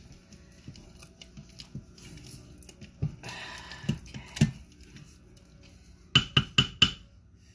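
Chicken and yellow rice being stirred in a stainless-steel Instant Pot inner pot: soft knocks and scraping of the utensil through the rice, then about five sharp, ringing metal taps near the end.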